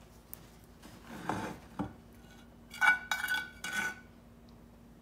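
A metal utensil clinking against kitchenware while sauce is spooned over the plated food: a soft scrape, a click, then three sharp clinks that each ring briefly.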